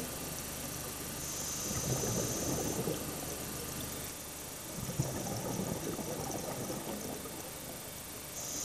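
Scuba breathing through a regulator underwater: a hiss on each inhalation and a crackling, bubbling rumble as exhaled air is released, repeating about every three to four seconds.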